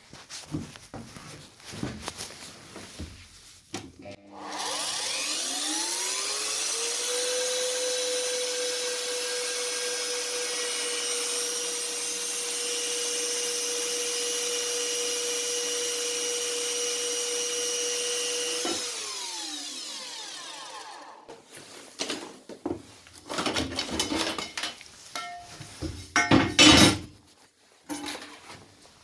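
An electric power tool starts about four seconds in, its motor whine rising in pitch as it spins up. It runs steadily for about fourteen seconds, then is switched off and winds down. A series of sharp knocks and clatter follows near the end.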